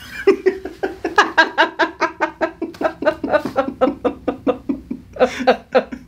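A woman laughing hard: a long run of quick, even 'ha' pulses, about four a second, breaking off briefly near the end and starting again.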